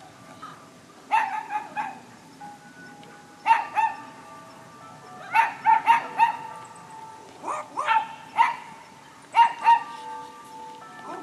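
Background music: a light melody of short struck or plucked notes that ring on briefly, in little groups of two to four notes every couple of seconds.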